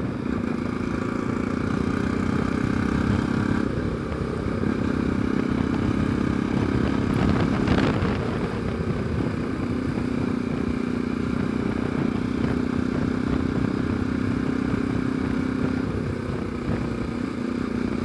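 Single-cylinder engine of a Bajaj Pulsar NS200 motorcycle running steadily while riding, over a low rumble. Its note dips briefly about four seconds in and again near the end.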